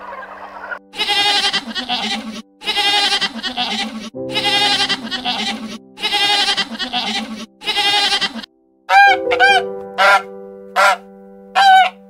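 Loud animal calls over background music: about five long calls each lasting a second or more, then near the end a quick series of short, sharp calls that rise and fall in pitch.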